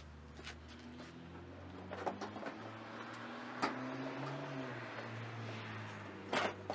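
Plastic front bumper of a Honda Civic being pried off its mounts: a few sharp clicks and knocks from its clips, the last two near the end. Underneath, a low steady engine hum.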